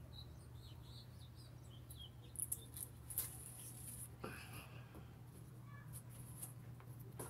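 Faint rustling and short clicks from bean plants being handled and pods picked, with a few faint high chirps in the first couple of seconds and a steady low hum underneath.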